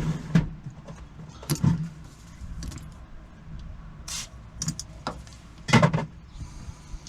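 Small metallic clicks and jingling rattles of a lock cylinder, keys and locksmith tools being handled, in short scattered bursts, the loudest about six seconds in.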